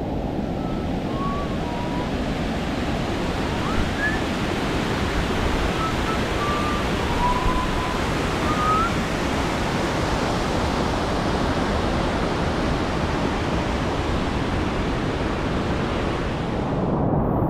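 Whitewater rapids of a steep mountain creek rushing steadily in a loud, continuous roar of water. A few faint, short whistle-like tones sound over it in the first half, and the hiss dulls near the end.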